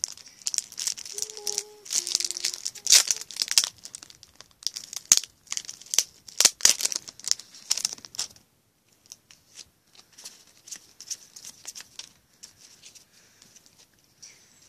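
Match Attax trading-card pack's shiny wrapper being torn open and crinkled by hand, with loud sharp crackles for about eight seconds. After that comes fainter rustling.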